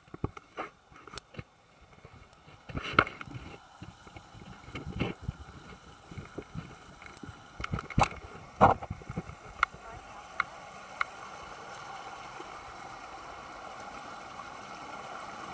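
Scattered knocks and clicks, then the steady rush of water spilling over a small stone weir, growing louder toward the end.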